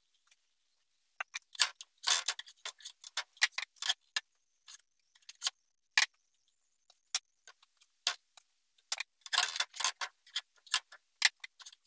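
Quick clicks, taps and scrapes of a plastic slotted spatula against a metal griddle pan as Welsh cakes are flipped and lifted. They come in two busy clusters, about two seconds in and again around nine seconds, with scattered single taps between.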